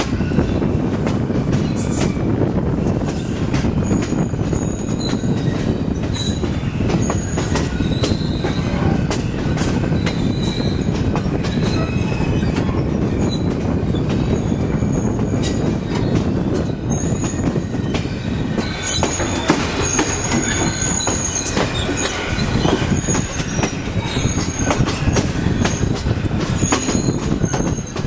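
Ontario Northland mixed train rolling along the track: a steady rumble of cars on the rails with frequent sharp clacks and short, high-pitched steel wheel squeals that come and go.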